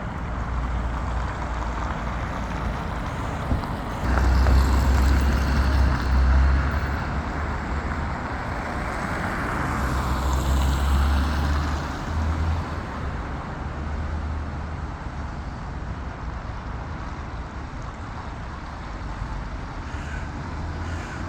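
Steady outdoor traffic noise with a low rumble that swells twice, about four and ten seconds in, as vehicles pass. A single sharp tap sounds a few seconds in.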